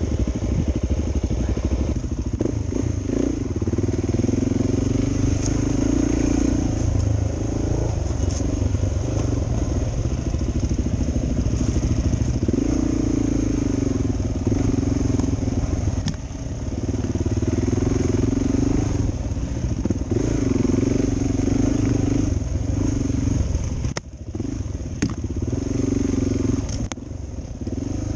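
Suzuki DR 400 dual-sport motorcycle's single-cylinder four-stroke engine running on the move, its pitch rising and falling again and again as the throttle opens and closes, with a few sharp clicks.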